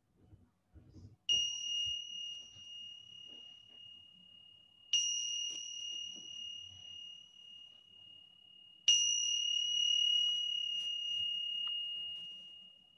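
Small meditation bell struck three times, each strike ringing a clear high tone that slowly fades, the last still ringing near the end: the bell marking the end of a period of silent sitting.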